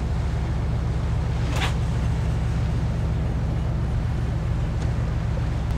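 A steady low drone with a single sharp click about one and a half seconds in.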